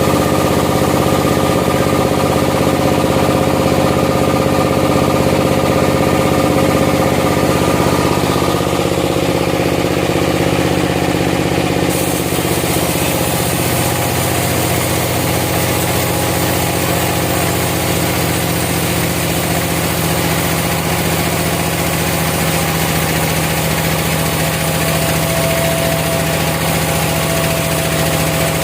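Sawmill engine running steadily; its tone shifts about nine to twelve seconds in and a hiss joins it.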